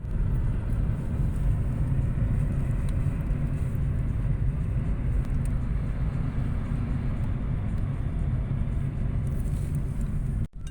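A car driving: a steady low rumble of engine and road noise, with a few faint ticks. It drops out abruptly near the end.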